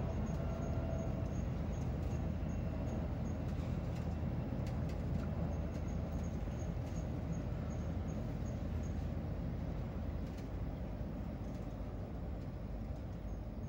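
Steady low outdoor background rumble, with faint high ticks repeating about three times a second for much of the time.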